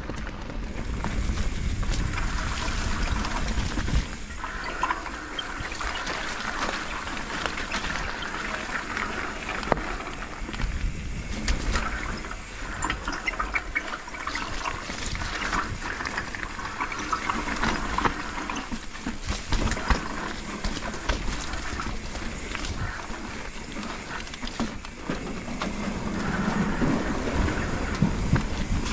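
Mountain bike rolling down a dirt singletrack: steady tyre noise with frequent small rattles and knocks from the bike over bumps and roots.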